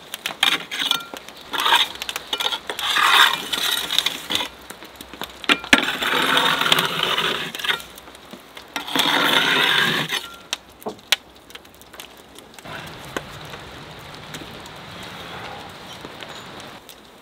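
Long metal poker scraping across the brick floor of a wood-fired cob oven and clinking against brick and burning logs as the fire is pushed aside. The scraping comes in several loud bursts with sharp clinks over the first ten seconds, then only scattered clicks.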